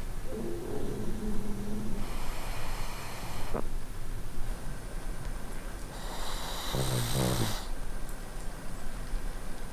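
A sleeping pug snoring: a pitched snore lasting about two seconds, then an airy breath, and a second, stronger snore about six seconds in.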